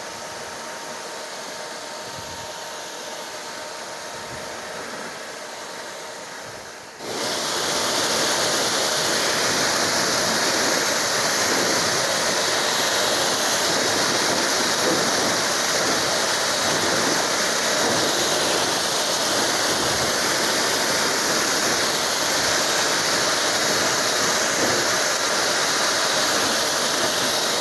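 STARQ ST2400U electric pressure washer running and its water jet spraying, rinsing foam and detergent off a scooter. A quieter steady hiss for about seven seconds, then the spray turns suddenly louder and stays steady.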